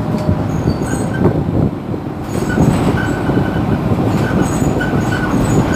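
Mercedes-Benz Citaro C2 city bus standing at a stop with its engine idling, a steady low rumble, with short high-pitched chirps now and then over it.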